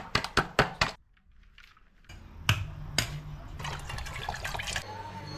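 Wooden pestle pounding garlic and chilies in a stainless steel bowl, about five quick strikes a second for the first second. After a short pause and a couple of knocks, coconut water pours from a coconut into an aluminium pot.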